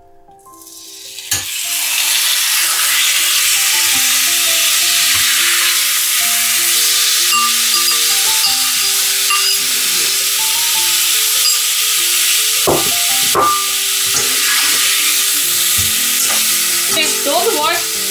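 Raw marinated chicken pieces sizzling loudly in hot oil in a frying pan as they are turned with a spatula. The sizzle starts about a second in, as the chicken hits the oil, and then holds steady. Two spatula knocks on the pan come about two-thirds of the way through.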